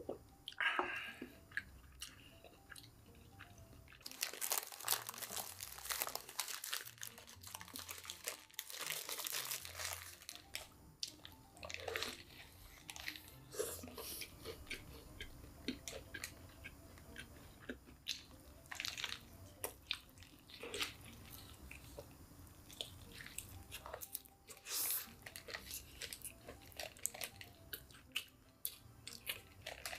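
Close-up chewing and crunching of KFC crispy fried chicken: a dense run of crunchy bites for several seconds about four seconds in, then scattered crunches and wet chewing.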